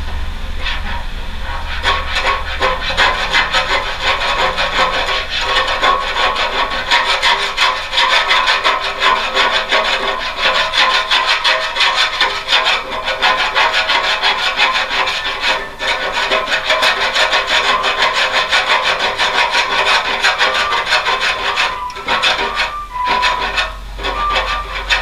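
A homemade hand scraper scraping old paint and filler off a car's front panel in quick, repeated rasping strokes, briefly pausing about two thirds of the way through.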